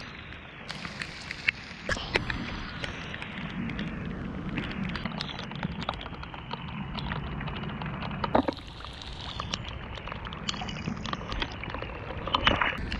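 Tyres of Powerslide Imperial SUV off-road inline skates rolling through mud on a dirt trail: a steady rush of rolling noise scattered with small clicks and ticks.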